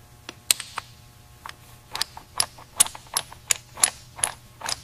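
A quick, irregular run of sharp metallic clicks, about three a second, as a steel hex fitting is turned by hand into a threaded metal port.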